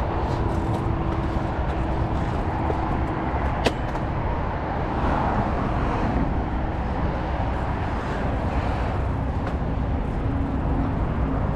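Steady wind and rolling noise from a mountain bike riding along a paved path, heard on a body-mounted camera. A single sharp click about three and a half seconds in.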